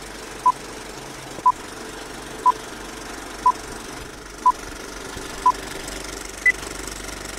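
Film countdown leader beeps: six short, identical beeps one a second, then a single higher-pitched beep a second later. Under them runs a steady mechanical clatter like a running film projector.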